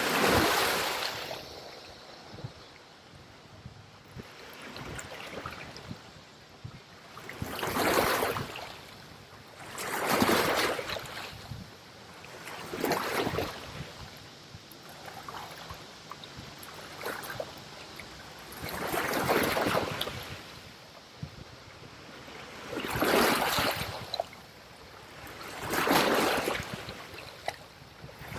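Small waves washing in on a shore: a surge of water noise every two to three seconds that swells and falls away, over a steady low hiss.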